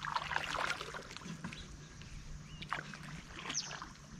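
A shikara's wooden paddle stroking the lake water: a splashing stroke in the first second, then small drips and knocks against the boat, with a few short high chirps.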